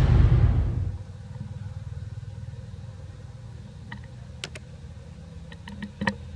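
A low, steady engine hum, like a motor vehicle idling. A short, loud rush of noise opens it, and a few sharp clicks come in the second half.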